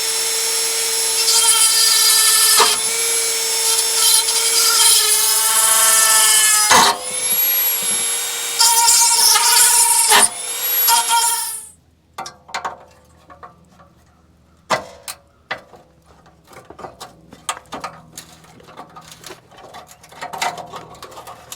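A handheld power tool runs with a high-pitched whine, working on the rusted joint between the exhaust intermediate pipe and muffler. It runs in four long bursts over the first twelve seconds or so. After that come scattered metal clicks and knocks as the parts are handled.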